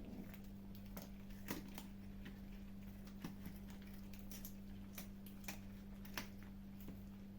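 Kittens chewing and crunching food: faint, irregular crunches and clicks, over a steady low hum.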